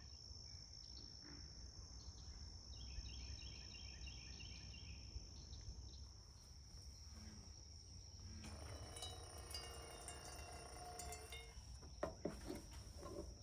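Insects drone in a steady high trill in the swampy pine woods. Faint chirping calls come in short series a few seconds in and again from about 8 to 11 seconds.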